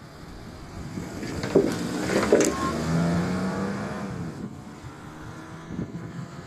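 A motor vehicle passing by, its sound swelling to a peak a couple of seconds in and then fading, with a couple of sharp knocks as it goes past.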